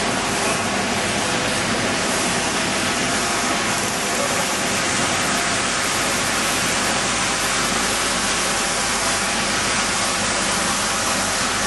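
Corn flakes production line machinery running: a steady, even rushing noise with a faint constant hum, from the rotating drum and conveyors carrying the flakes.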